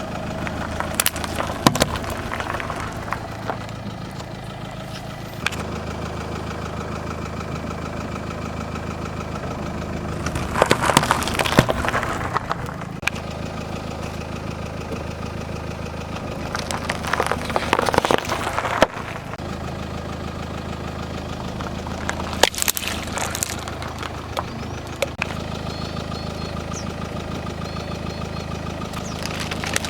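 A car engine idling steadily while its tyres roll over and crush objects. There are about four bursts of crunching and cracking, each a second or two long, with sharp snaps in between.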